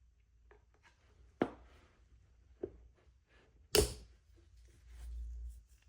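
Parts of an old lathe headstock being handled: a few faint clicks and three separate knocks, the loudest about four seconds in, then a low rumble for about a second near the end.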